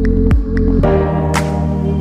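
Background music: a drum beat about twice a second that stops a little under a second in, giving way to held chords with a single sharp percussion hit.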